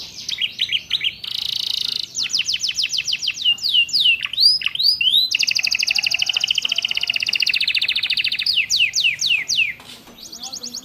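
Domestic canary singing a fast, varied song with ciblek and prenjak (prinia) phrases worked in: runs of quick downward-sweeping notes, a long rapid trill from about five to eight and a half seconds in, then more sweeping notes.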